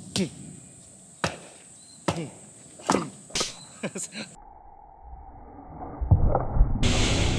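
Blows chopping into very hard firewood, about seven sharp strikes in the first four seconds. After an abrupt cut, a louder rumbling noise takes over near the end.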